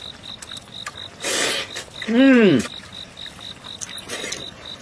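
A man eating stewed beef ribs: a short slurp about a second in, then a single rising-and-falling "mm" of enjoyment. A cricket chirps steadily in the background, about four chirps a second.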